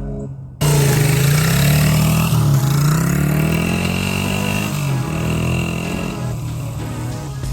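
Honda XR100's single-cylinder four-stroke engine revving up and down, cutting in suddenly about half a second in.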